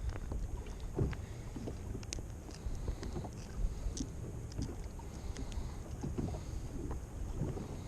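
Wind and water noise on a small fishing boat: a steady low rumble with scattered light knocks and ticks.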